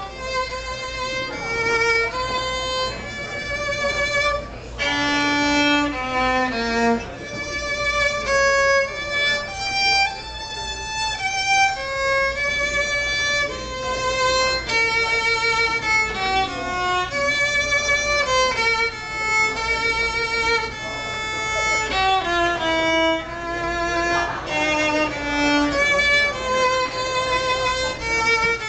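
Solo violin, picked up by a stage microphone, playing a slow melodic line of held notes with vibrato, dipping to a few lower notes twice.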